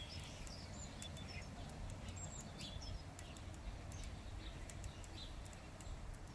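Faint small-bird chirps scattered throughout, with a few light clicks, over a low background rumble.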